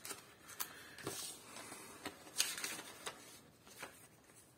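Paper rustling in short, faint bursts with light clicks as the pages of an instruction booklet are handled and turned.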